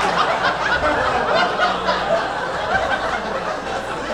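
Audience laughing at a stand-up punchline, the laughter slowly dying down.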